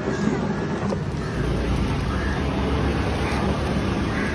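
Steady low outdoor rumble, with a faint knock of a fish knife on a wooden cutting board about a second in.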